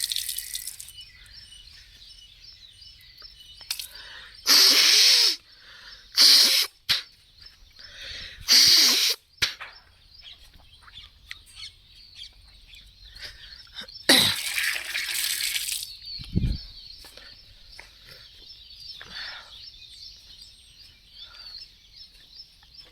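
A woman sneezing forcefully, expelling water sniffed up the nose to clear it. There are three loud sneezes a second or two apart, then a longer one about fourteen seconds in, with birds chirping faintly in the background.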